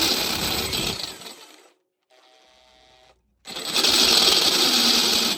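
Power drill with a step drill bit cutting a hole, in two runs: the first winds down about a second and a half in, and the second starts about three and a half seconds in and stops near the end.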